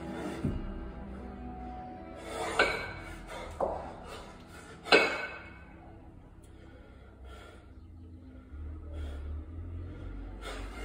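Background music, with three sharp metallic clinks of a pair of 28 kg competition kettlebells knocking together in the rack, about two and a half, three and a half and five seconds in; the last is the loudest.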